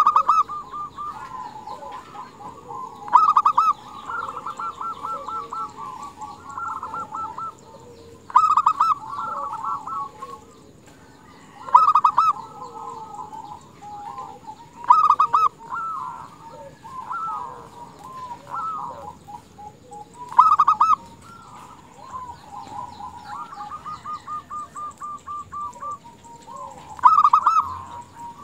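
Female zebra dove calling: loud bursts of rapid staccato cooing notes every three to six seconds, with softer trills between them. This is the female's call used to draw male doves into song.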